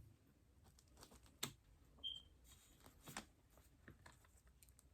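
Faint, scattered taps and clicks of a knife against a cake pan as a stuck cake is worked loose, with a brief high squeak about two seconds in.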